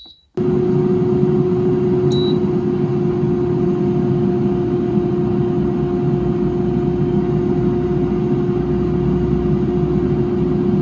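Brabantia air fryer started with a beep: about half a second in its fan comes on and runs steadily, a constant hum over a rush of air. Another short beep sounds about two seconds in.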